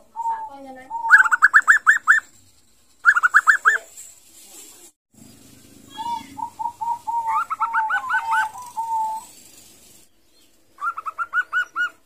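Young zebra dove singing in short bouts of staccato cooing: each bout opens with a held note, then breaks into a fast run of short clipped coos, about seven a second, four bouts in all. It is a juvenile about two months old whose song is still being learned.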